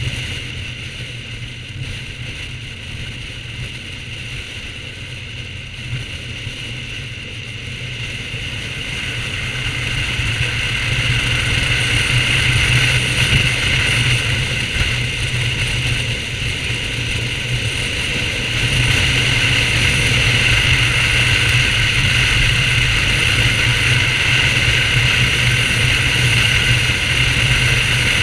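BMW R1200GS flat-twin boxer engine running steadily while the motorcycle is ridden, getting louder about ten seconds in and again near nineteen seconds.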